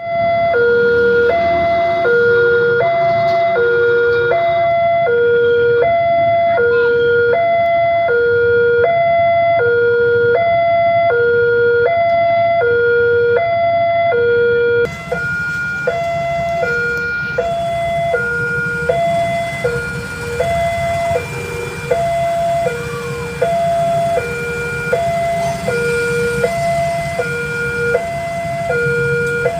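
Electronic warning alarm of a railway level crossing sounding: a steady two-tone signal alternating high and low, each tone lasting under a second, repeating without break. About halfway through, a low rumble and hiss of traffic rise beneath it.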